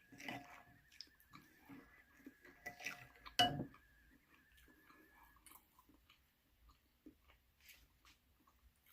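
Close-up chewing and lip smacking while eating seafood, with soft scattered clicks and one louder sharp clink about three and a half seconds in. A faint steady high whine sits underneath and stops about halfway through.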